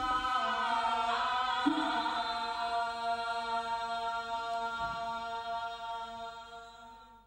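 Voices chanting long held notes in a slow, steady drone, slowly fading away toward the end.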